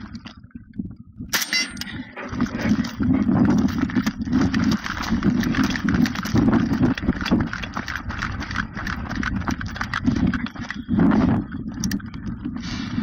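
Footsteps crunching on rocky desert gravel as a shooter moves between firing positions, with a brief sharp crack about a second and a half in.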